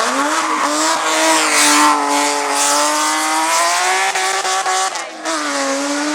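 Hillclimb race car engine at high revs, its note climbing through the gears. A short drop in pitch and loudness about five seconds in, as for a lift or gear change, before it pulls up again.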